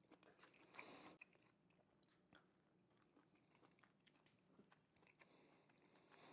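Very faint chewing of a mouthful of roast chicken, near silence, with a few soft clicks and a brief soft noise about a second in.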